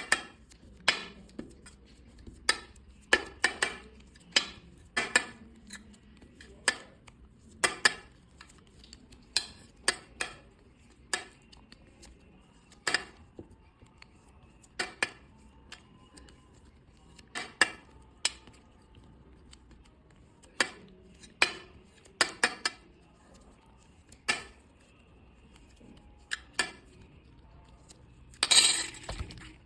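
Sharp clicks and taps of a utensil against a container as clay slime is mixed, coming irregularly about once a second. A longer, louder scraping noise comes near the end.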